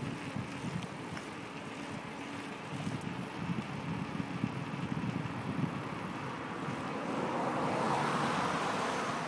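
Wind buffeting the phone's microphone and the rumble of a bicycle ride in motion, with no clear tones. A broader hiss swells from about seven seconds in and peaks near the end.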